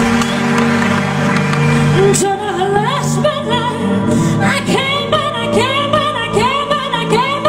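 A woman singing into a microphone over a live band. The band plays alone at first; her voice comes in about two seconds in, in short, quick phrases.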